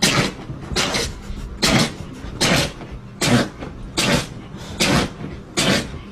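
Dog sneezing over and over, about eight sharp sneezes at an even pace of roughly one every 0.8 seconds.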